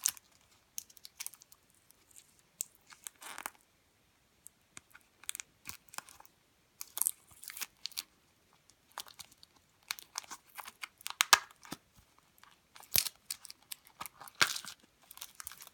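Hands opening a taped plastic gashapon capsule and unwrapping the mini squishy inside: scattered plastic crinkling, tape tearing and small plastic clicks, in irregular short bursts.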